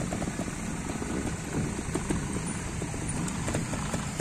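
Trials motorcycle engine running at low revs, with a steady low pulsing, as the bike rolls down a steep dirt slope.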